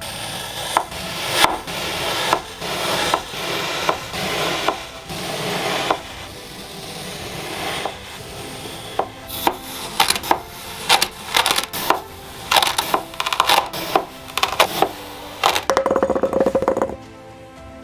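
A knife slicing through kinetic sand with a crisp, gritty crunch. For the first several seconds it scrapes in long swelling strokes; in the second half comes a quick run of short, sharp cuts and crackles, densest just before the end.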